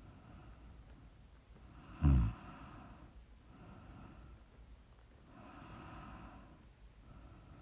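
A sleeping woman breathing slowly and heavily, each breath a soft noisy swell a few seconds long. About two seconds in comes one short, loud snort.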